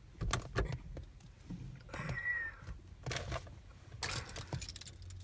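Rustling, light clicks and rattles of small objects being handled inside a car, with a brief squeak about two seconds in and louder rustling near the end.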